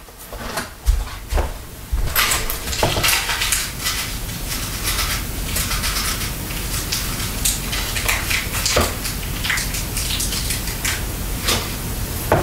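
Hands rummaging among small metal items, clinking and rattling with a rustle, beginning after a few knocks and carrying on steadily from about two seconds in with many sharp clicks.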